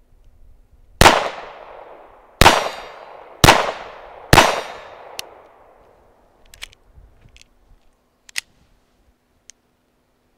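Four sharp .22 LR pistol shots from a GSG 1911 replica, about a second apart, each ringing briefly. Then come a few light metallic clicks as the string stops on a CCI Mini Mag round that fails to fire, a dud.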